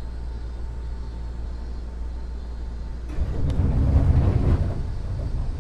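Seibu 2000-series commuter train car standing at a platform: a steady low hum from the car's equipment, then about three seconds in a louder rough rush of noise with a sharp click, lasting about two seconds.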